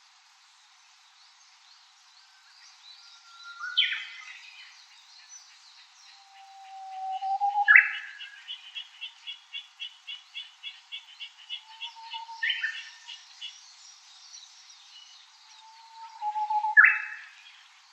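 Japanese bush warbler singing its "hoo-hokekyo" song repeatedly: a long low whistle that breaks into a sharp, quick flourish. Between songs there is a rapid run of short, evenly repeated notes, about four a second.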